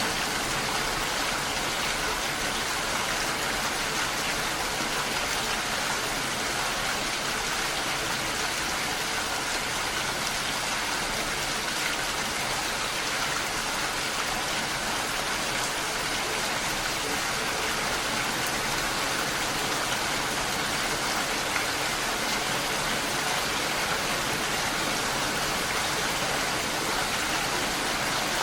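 Steady, even rain.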